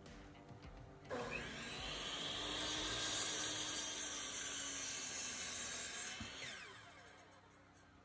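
Miter saw with a Bauer 60-tooth blade starting up about a second in and cutting through a wooden board. Near the end it winds down with a falling whine.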